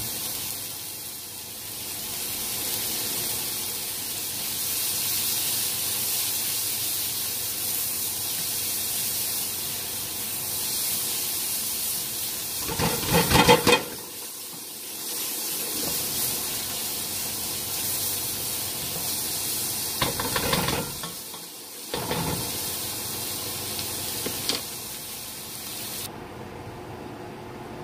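Diced onion sizzling in a hot carbon-steel wok, with several bursts of stirring and scraping, the loudest about halfway through. The sizzle cuts off suddenly near the end.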